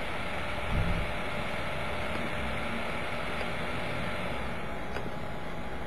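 Steady background hiss with no speech, and a soft low thump just under a second in.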